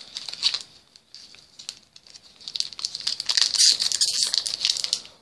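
Plastic booster pack wrapper being handled and opened by hand: scattered rustles, then a dense, loud crinkling over the last two seconds or so.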